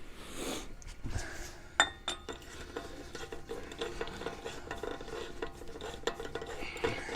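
Metal-on-metal clinking as a wheel bearing adjusting nut is run onto the threaded stub axle of a Toyota 80 series Landcruiser front hub, with a sharp clink a little under two seconds in, then a steady fast metallic rattle.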